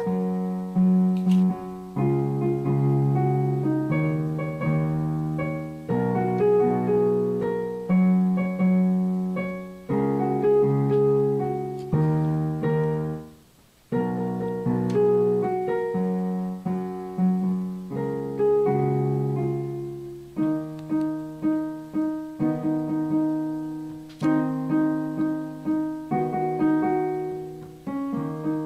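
Background piano music: struck chords that fade and change about every two seconds. It drops out for about a second around the middle.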